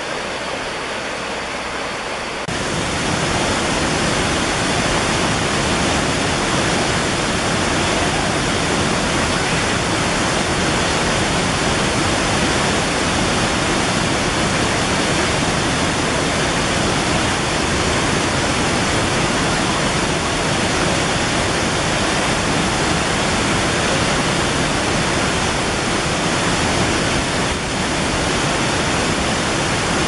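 Rushing water of a rocky stream, a steady, dense hiss that steps up louder about two and a half seconds in.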